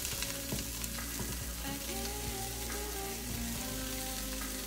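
Broccoli and bell pepper pieces sizzling in hot oil in a frying pan as they go in for a stir-fry: a steady frying hiss.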